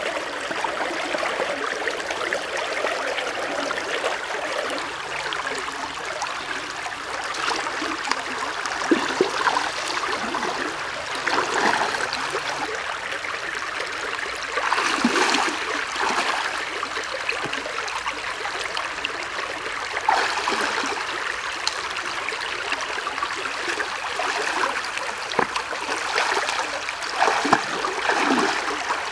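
Shallow stream running over rocks, a steady babbling flow, with a few brief louder splashes; near the end, feet wading and splashing through the water.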